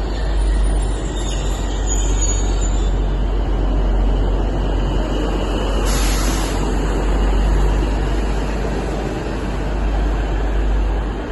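A train moving along the track with a steady rumble and faint high wheel squeal in the first few seconds. A short hiss comes about six seconds in.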